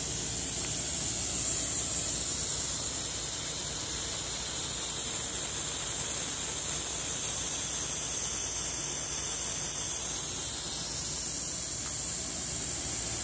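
GISON pneumatic wet polisher running along a marble slab's edge to bevel it, giving a steady high hiss of air and water that is a little louder over the first few seconds.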